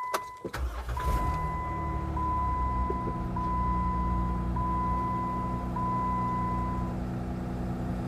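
A high-mileage Jeep Wrangler JKU engine starting from cold: a few clicks, then about half a second in the engine catches and settles into a steady idle. The owner says this engine starts hard and idles rough when cold. A high electronic chime repeats about once a second over the idle and stops about seven seconds in.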